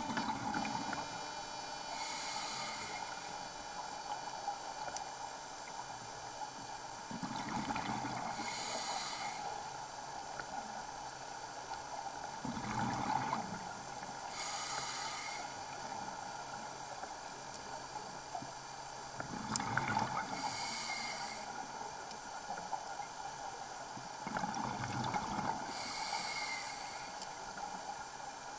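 Scuba breathing heard underwater: a hissing inhalation through the regulator about every five to six seconds, each breath later followed by a lower bubbling rush of exhaled air, over a steady hum.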